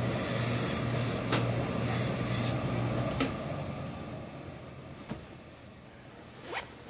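Steam iron pressing a trouser back panel flat: a steady hiss with a low hum that fades away after about three seconds, with a few light knocks as the iron and fabric are handled.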